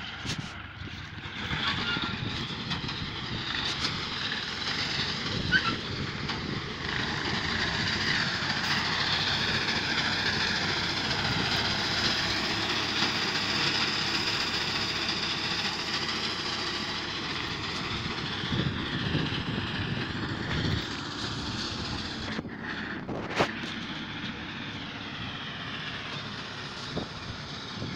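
Distant farm tractor engine running steadily as it cuts wheat, with a continuous whirring hiss over the engine note. A single sharp click comes about two-thirds of the way through.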